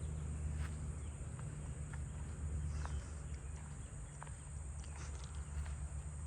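Handsome trigs singing: a steady, high-pitched insect trill, over a low rumble with a few faint clicks.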